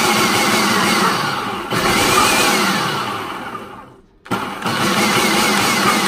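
Food processor motor chopping fresh parsley in pulses. It dips and picks up again, then winds down with a falling pitch to a brief stop about four seconds in, and starts again.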